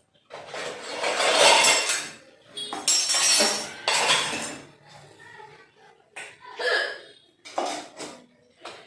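Kitchen pots, pans and cutlery clattering and clinking as cooking utensils are handled, in a few separate runs of noise and sharp clinks.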